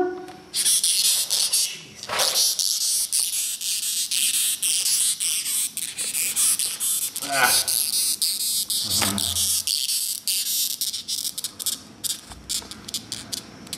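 Long-horned beetle stridulating: a continuous high-pitched rasping squeak made of many rapid clicks, the squawking call these beetles give when disturbed. It stops near the end.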